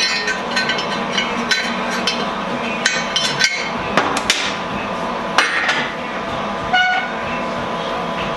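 Short pieces of square steel tubing set down and knocked against a steel fixture table: irregular sharp metal clanks and clinks, each with a short ring, over a steady machine hum.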